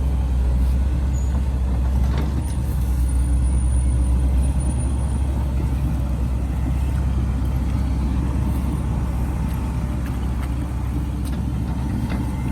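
Heavy diesel engine of construction machinery running steadily with a low drone, with a couple of faint knocks.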